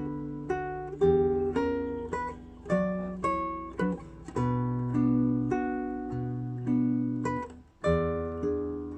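Acoustic guitar playing a slow Venetian boat song (barcarolle), single plucked melody notes ringing over held bass notes, with a brief pause near the end.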